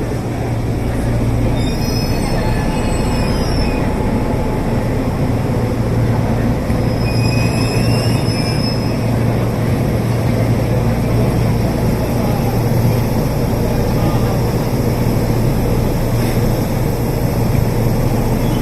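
Electric train moving along the platform with a steady low hum and rumble, its steel wheels squealing high on the rails twice, about two seconds in and again around eight seconds in.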